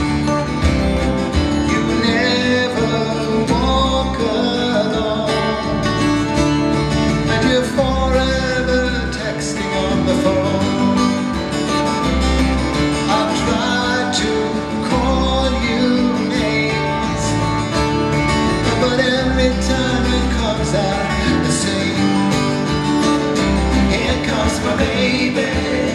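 Live acoustic music: two acoustic guitars strumming a steady rhythm, with a melody line wandering over them in an instrumental passage between verses.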